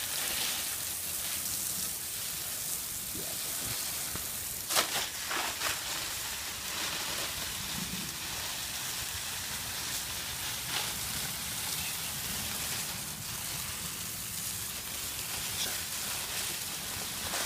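Steady hiss of a garden hose spraying water onto a burning brush fire, with a few sharp crackles about five seconds in.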